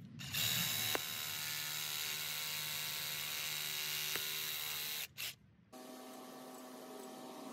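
Cordless reciprocating saw running steadily for about five seconds as it cuts a tree root beneath a stump, then stopping; a fainter steady hum follows.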